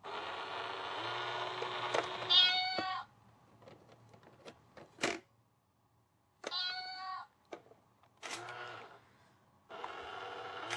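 Domestic cat meowing and yowling in a string of calls, some long and rough, some short and clear, startled by a toy in a box. A single sharp click sounds about five seconds in.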